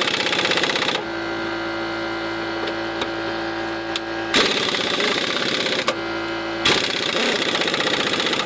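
Pneumatic impact wrench hammering in three bursts on a rusted axle bolt, which has started to turn. Between the bursts a small air compressor runs steadily.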